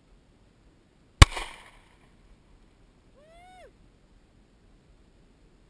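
A single shot from a .40-calibre handgun about a second in, sharp, with a short echo trailing off. A couple of seconds later comes a brief high-pitched vocal sound that rises and then falls.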